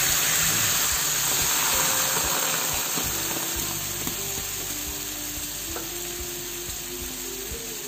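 Hot oil in a frying pan sizzling as thick coconut milk is poured in around a shallow-fried pomfret. The sizzle is loudest at first and slowly dies down as the liquid cools the pan.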